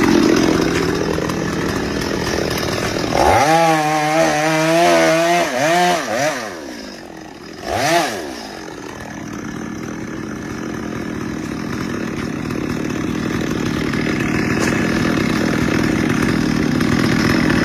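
Two-stroke chainsaw running: a high wavering whine from about three seconds in that drops away around six seconds, a brief rev and fall near eight seconds, then steady running that slowly grows louder.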